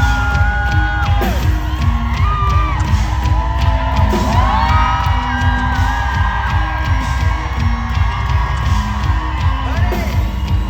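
Live rock band playing loudly, with drums and a repeating bass line under long held, sliding vocal notes, and the crowd whooping along.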